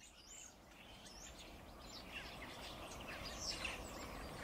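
Birds chirping and twittering, many short quick calls over a steady low background hiss, faint and fading in from silence at the start.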